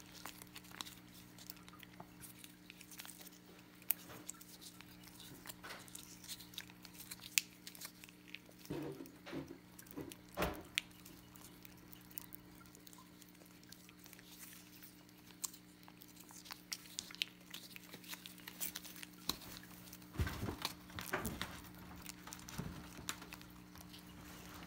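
Cat licking a squeezable lickable cat treat from its tube held in a hand: a steady run of small wet clicks and smacks, with louder bouts of licking about nine seconds in and again about twenty seconds in.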